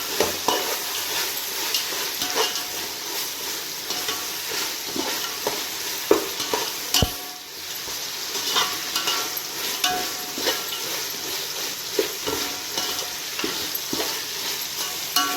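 Ginger-garlic, coriander and cumin paste sizzling in hot oil in a pan, stirred with frequent scrapes and knocks of the utensil against the pan. The paste is being fried until it is fully cooked.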